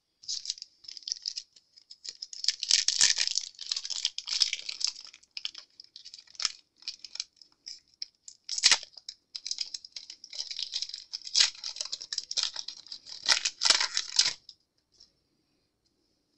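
Close crinkly rustling with many sharp clicks and taps, from hands handling things on the desk; it stops about two seconds before the end.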